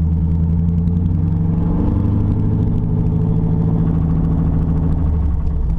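GM 5.3-litre LS V8 engine in a swapped Prius running steadily under way. Its pitch rises a little about two seconds in and eases off near the end.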